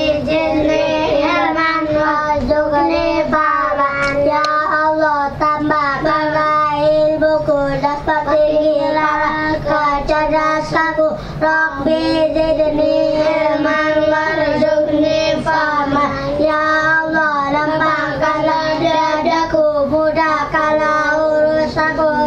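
High-pitched singing voice that is sustained and melodic, carrying on without pause.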